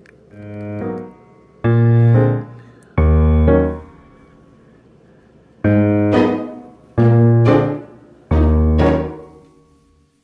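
Piano music played in short phrases of about a second each, six in all, with a longer pause near the middle.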